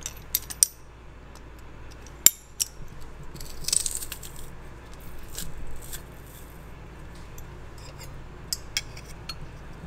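Stainless steel garlic press handled and squeezed on a garlic clove: scattered sharp metallic clicks and clinks, with a short crunching rasp about four seconds in.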